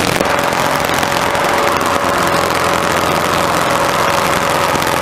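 Robin DR400 light aircraft's piston engine and propeller heard from inside the cockpit in flight: a loud, steady drone with a constant high whine over it.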